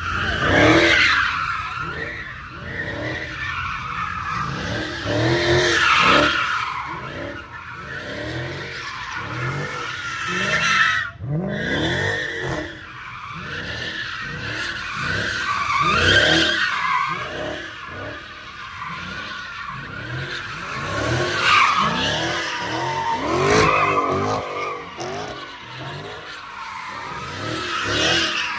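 Cars doing donuts and burnouts: tyres screeching while engines rev up and down, swelling louder every few seconds.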